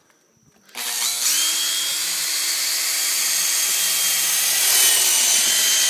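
Cordless drill boring a hole into a coconut shell. The motor starts under a second in, its whine rising briefly as it comes up to speed, then runs steadily under load.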